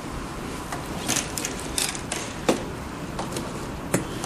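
Scattered light clicks and rustles of hands handling wires and small parts on the foil-covered platen of a heat press, with the clearest clicks about a second in, near the middle and near the end.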